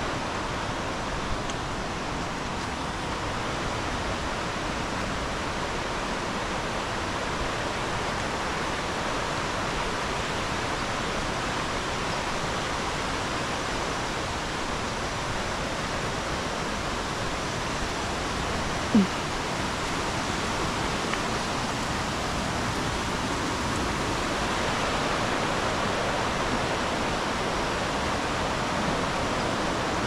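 Steady rushing of flowing water. A single brief sharp sound stands out about two-thirds of the way through.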